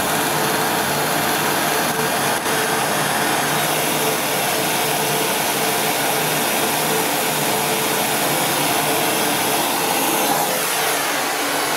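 Gas blowtorch flame hissing steadily on the hot end of a test-tube Stirling engine, while the engine runs fast and its glass tube assembly vibrates with a steady mechanical hum.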